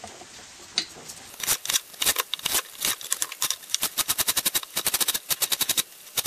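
Chef's knife chopping celery stalks on a cutting board: a fast run of sharp knocks, several a second, starting about a second in, with a brief pause near the end.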